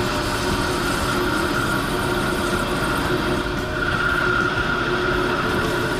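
CNC lathe turning a spinning workpiece under flood coolant: steady spindle and cutting noise with coolant spray. A high tone in it grows louder about four seconds in.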